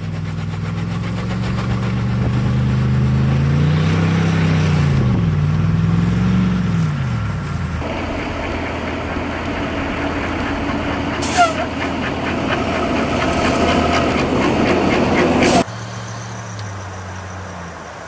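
Vehicle engines running in deep snow, in three short cuts. First a deep truck engine whose pitch rises and falls as it revs. Then a rougher, louder engine with a single sharp click partway through. Near the end, a quieter engine running steadily.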